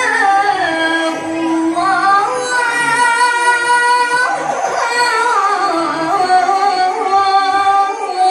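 A woman's voice reciting the Qur'an in melodic tilawah style through a microphone, drawing out a long ornamented phrase whose held notes bend and glide up and down, with a brief breath about four seconds in before the next phrase.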